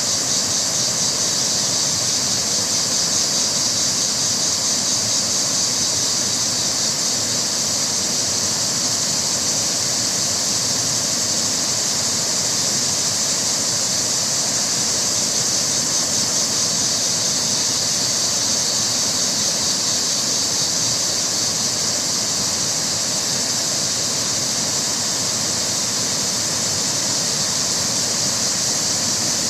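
Rushing river water running over rocks: a steady, hissing rush that is strongest in the high range.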